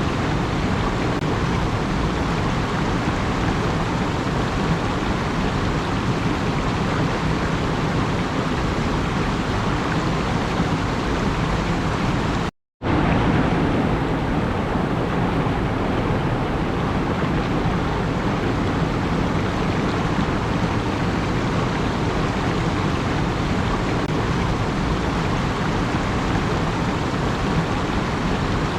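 Steady, even rushing noise with no pitch, cut to silence for about half a second roughly thirteen seconds in.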